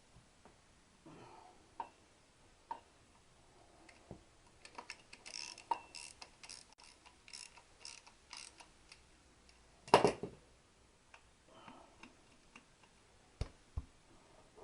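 Hand tools tightening the exhaust fittings on a Triumph motorcycle: scattered metal clicks, then a run of quick, even ratchet-like ticks, with one louder metal knock about ten seconds in.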